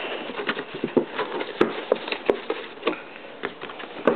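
Cardboard model-kit box being opened and handled: irregular taps, clicks and rustles, with a few sharper clicks.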